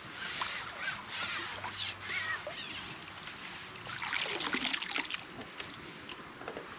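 Water splashing and dripping as a hooked fish is drawn into a landing net and the net is lifted out of the water. There is a louder rush of water about four seconds in.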